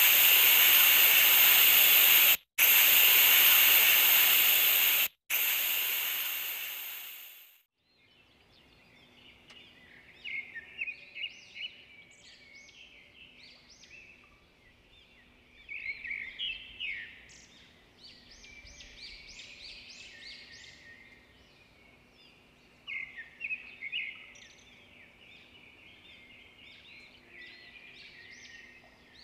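A loud, steady hiss, cutting out twice briefly and fading away about seven seconds in; then birds calling in short bursts of chirps over a quiet background.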